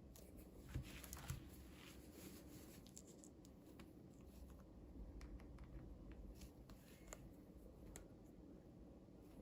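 Near silence with faint handling of small toys and packaging: scattered light clicks and rustles, with two slightly louder taps about a second in.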